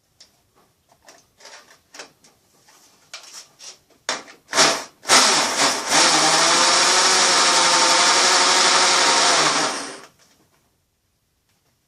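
Electric drill spinning a 25 mm hole saw with a pilot bit into a plastic bottling-bucket panel. A few short blips come about four seconds in, then a steady run at even speed that stops abruptly near ten seconds. Light clicks and handling knocks come before it.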